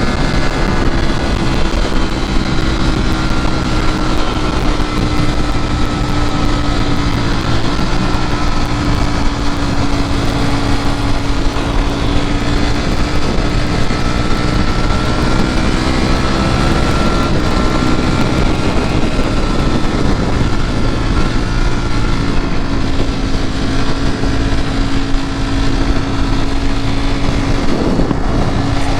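2019 Ducati Panigale V4 S's 1,103 cc V4 engine running at a steady cruise while the bike is ridden, its note drifting only slightly up and down, over a constant rush of wind noise.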